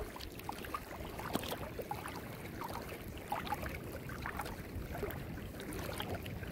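Low rumble of wind on the microphone over shallow water washing around the legs of someone wading, with a few faint short sounds scattered through.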